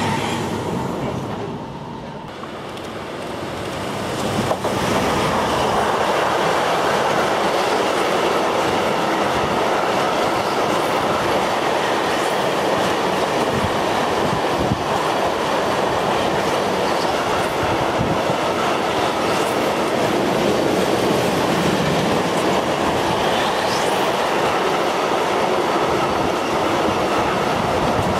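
Freight train of loaded double-deck car-transporter wagons rolling past: a steady rumble with wheel clatter over the rail joints. It builds up about four seconds in, after a dip, and a brief rising wheel squeal comes a few seconds before the end.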